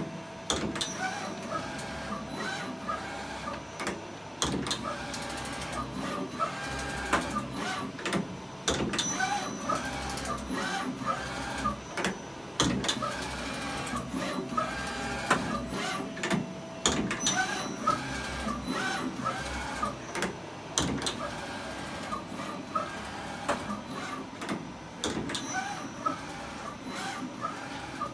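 Machinery running with a steady tone through the first half and irregular clicks and short squeaks throughout.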